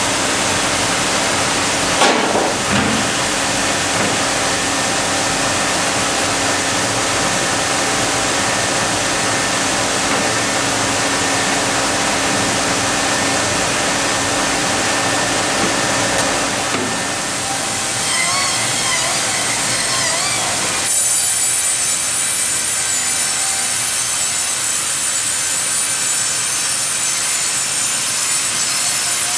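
Sawmill log bandsaw (Ustunkarli UHM 140 H) running and sawing logs fed by a hydraulic log carriage: a loud, steady sawing noise throughout. A couple of sharp knocks come about two seconds in, and the sound's character changes abruptly about two-thirds through.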